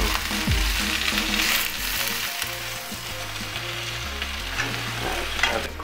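Baby spinach, cherry tomatoes and garlic sizzling in a hot frying pan as they are stirred and turned with a utensil, the spinach cooking down.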